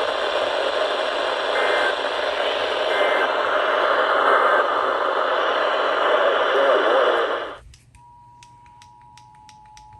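A radio receiver's static hiss, with three short data-burst chirps of an Emergency Alert System header faintly under it. The static cuts off abruptly about three quarters of the way in, and the two-tone EAS attention signal starts quietly, with computer keyboard clicks over it.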